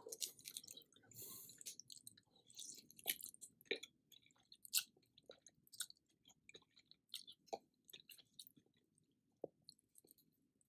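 A person chewing food close to the microphone: soft, irregular wet mouth clicks and smacks, busier in the first couple of seconds and then sparser.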